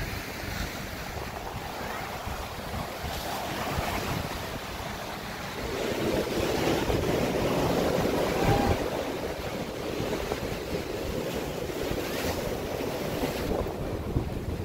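Ocean surf breaking and washing onto a sandy, rocky beach, with wind buffeting the microphone. The surf grows louder about six seconds in.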